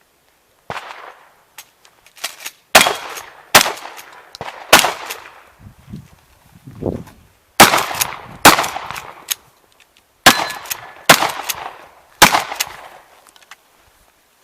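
Shotgun fired repeatedly during a practical shooting stage: about eight loud shots, some in quick pairs under a second apart, others singly with pauses of one to two seconds between, each shot echoing briefly.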